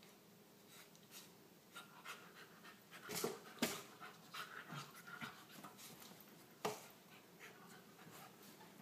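Corgi puppy and ferret play-fighting on bedding: scuffling and rustling with the puppy panting. Two sharp clicks come close together about three seconds in and another near seven seconds.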